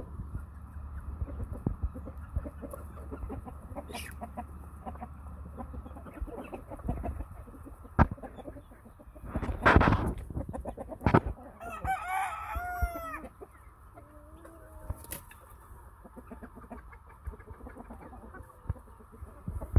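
Chickens clucking as they feed, with a rooster crowing once, a call of a little over a second, about twelve seconds in. A few loud knocks and a rustling swell come shortly before the crow.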